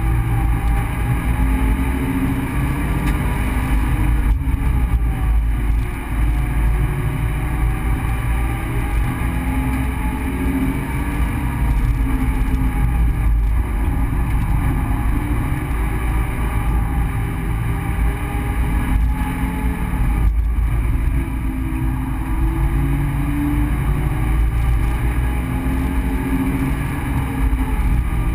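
Subaru BRZ's flat-four engine pulling at speed, heard from inside the cabin, its pitch rising and falling again and again as the revs climb and drop through the corners, over a steady low road rumble.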